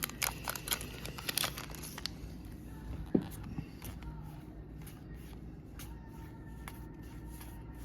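Pokémon booster pack wrapper and cards being handled: crinkling foil and quick paper rustles and clicks, busiest in the first two seconds and then fainter and sparser.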